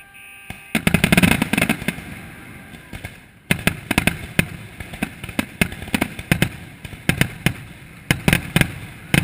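Fireworks going off. A dense burst of bangs and crackling comes about a second in, then after a short lull a long run of sharp, irregular bangs and pops.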